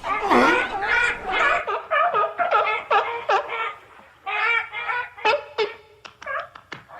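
Sea lions barking: a rapid run of short, pitched calls, several a second, with a brief lull a little past the middle.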